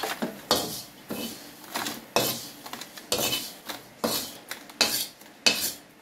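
A utensil scraping and sweeping across a dry wok in quick repeated strokes, close to two a second, as roasted grasshoppers are scooped out.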